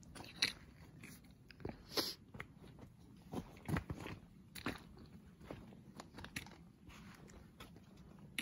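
Footsteps crunching on a forest trail, irregular steps about one or two a second.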